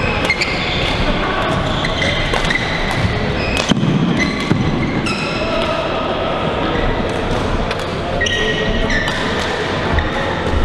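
Badminton rally in a large echoing hall: sharp cracks of rackets striking the shuttlecock and short squeaks of court shoes on the floor, over background chatter from other courts.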